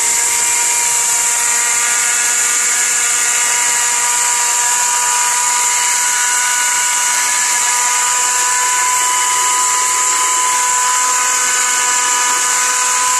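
Sahara Elegant blender's motor running at full speed, grinding dry rice into powder: a steady high-pitched whine over a hiss, its pitch creeping up slightly as it runs.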